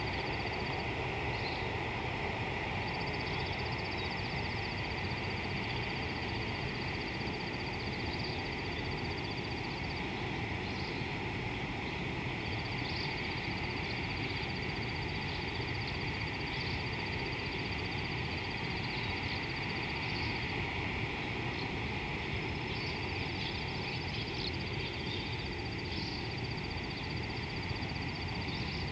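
Outdoor savanna ambience: a high-pitched, even trill sounds in long runs of several seconds with short gaps, a few brief chirps over it, above a steady hiss.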